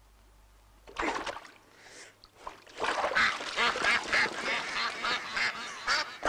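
Ducks quacking and water splashing as a duck is grabbed by hand in a pond. A short splash comes about a second in, then a busy flurry of splashes and quacks from about three seconds on.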